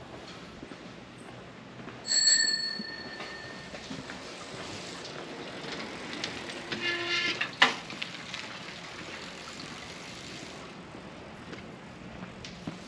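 A single bright metallic ring about two seconds in that fades over a second or so, then a brief, rapidly stuttering squeak near the middle that ends in a sharp click.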